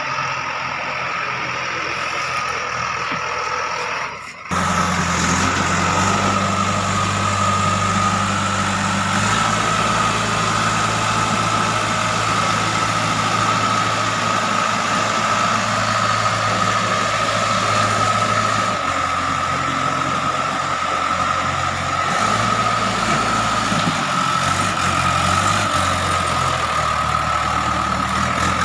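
JCB 3DX backhoe loader's diesel engine running at work, its low note shifting several times as the load changes, over a steady high whine. About four seconds in the sound breaks off briefly and comes back louder.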